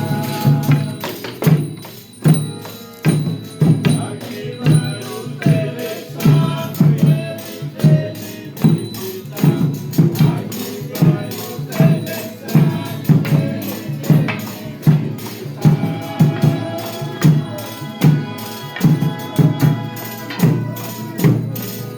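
Folia de Reis folk music: a steady drum beat of about one and a half strokes a second with tambourine jingles, and held melodic notes over it.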